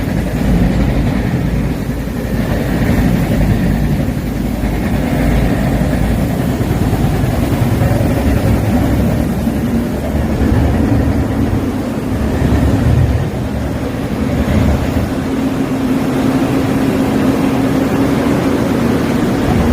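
Heavy machinery of a percussion rotary drilling rig running steadily with a dense, low rumble. A steady hum comes up over it in the last several seconds.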